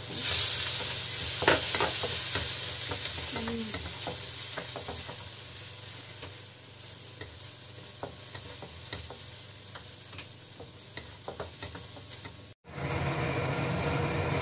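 Minced garlic sizzling in hot oil in a stainless steel wok, stirred with a wooden spatula that scrapes and taps against the pan. The sizzle is loudest as the garlic goes in and eases off over the next few seconds. The sound cuts out for an instant near the end.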